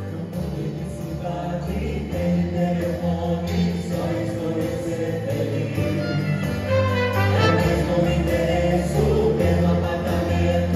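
A small vocal group singing together into microphones, backed by cello, violin, trumpet and keyboard, performing a Brazilian pop ballad arranged for choir and chamber ensemble.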